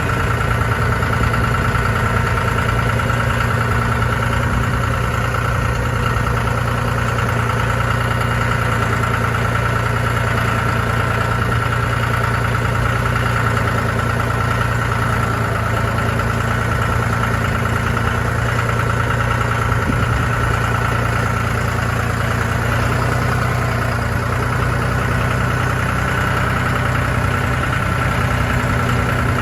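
John Deere 5045E tractor's three-cylinder diesel engine running steadily at a constant speed, with a steady high whine over it.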